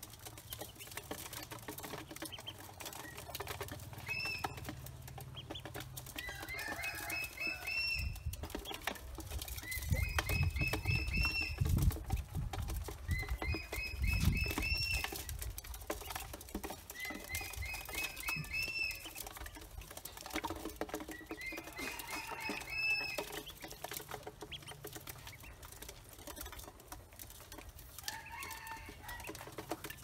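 Pekin ducklings feeding in a metal bowl, their bills clicking and pecking at feed, with short runs of high-pitched rising peeps every few seconds. A low rumble swells in the middle.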